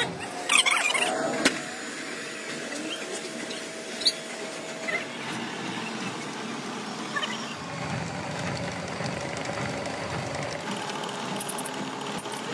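A sliding bolt on a steel door is drawn back with a metallic scrape and screech about half a second in, followed by a clank a second later. After that comes a steady hum of workshop machinery with a few light knocks.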